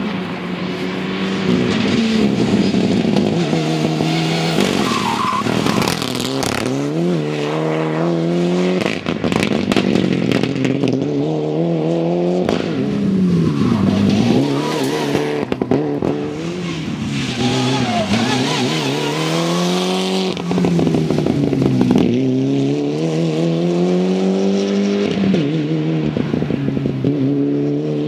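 Mitsubishi Lancer Evolution IX rally car's turbocharged four-cylinder engine pulling hard. The revs climb and drop again and again as it accelerates, shifts and brakes through the bends.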